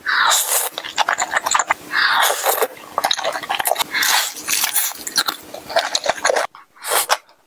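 Eating sounds: a wet slurp of thick saucy noodles, then crisp, crackling crunches and chewing as bites are taken from a piece of deep-fried chicken.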